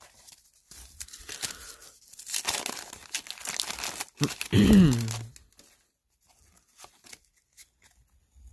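Paper wrapper of a hockey card pack being torn open and crinkled by hand. About halfway through comes a short, wordless vocal sound, the loudest moment. Near the end only a few faint clicks of cards being handled remain.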